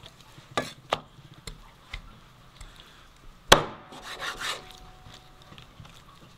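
Knife chopping meat on a wooden cutting board: a few sharp knocks, then a much louder knock about three and a half seconds in, with a brief ring and a short clatter after it.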